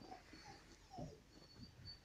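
A dog whimpering faintly: a few short whines, one falling in pitch about halfway through.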